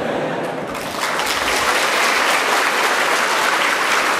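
Audience applauding after a joke, the clapping swelling about a second in and then holding steady.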